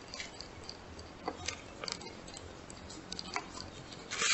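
Soft, scattered clicks and rustling of a shoelace being threaded through the holes of a paper lacing card by hand.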